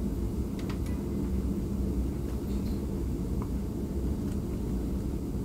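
Steady low background rumble, with a few faint, light ticks of a stylus tapping and sliding on a tablet's glass screen as handwriting is added.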